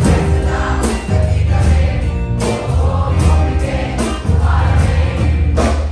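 Live band music: acoustic guitar and singing over a strong steady bass, with a few sharp hits.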